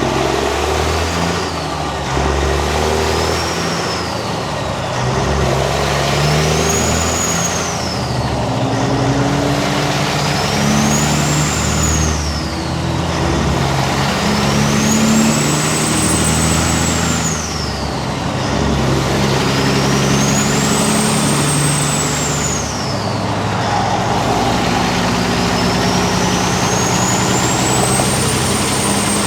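Peterbilt 379 semi truck's diesel engine pulling up through the gears, its turbocharger whistling. The whistle rises with the revs and falls away at each shift, about seven times, climbing higher each time, over the deep, steady engine note.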